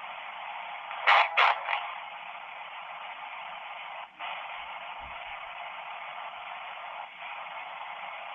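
S-Box ghost box sweeping through radio static: a steady, thin hiss with two short loud bursts of radio sound about a second in, and brief cut-outs twice later.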